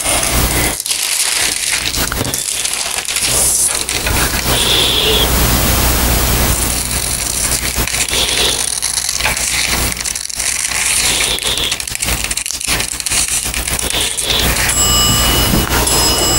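Sheets of tracing paper crinkling and rustling as they are handled, with scissors snipping through the paper to cut out pattern pieces.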